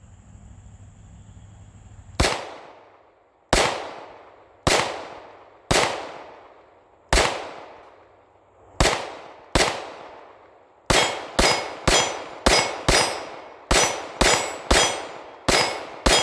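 9mm MAC 9 DS pistol with a compensator firing about seventeen shots, spaced a second or more apart at first, then about two a second through the last five seconds. Insects chirp steadily for the first two seconds, before the first shot.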